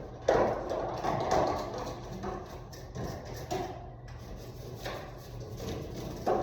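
Irregular knocks and scrapes of hands and tools working on an HVAC wall unit's metal fin grate during cleaning, with a steady low hum underneath.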